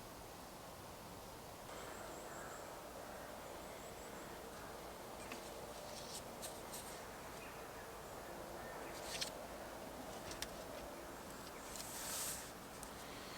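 Faint woodland ambience with distant birds calling, thin high notes and softer lower calls. Scattered light clicks and a brief rustle about twelve seconds in.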